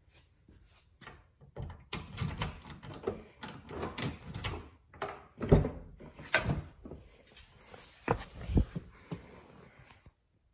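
Car door being unlocked with a metal key and opened: the key scraping and clicking in the door lock, the handle and latch clunking, then knocks and rustling as someone climbs into the driver's seat. The loudest clunk comes about five and a half seconds in.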